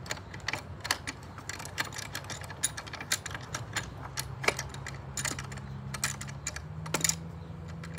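Harbor Freight metal bench vise being cranked open by its handle: a string of irregular metallic clicks and rattles from the handle and screw.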